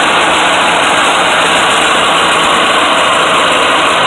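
Engine of a 1981 Quicksilver weight-shift ultralight running steadily and loudly.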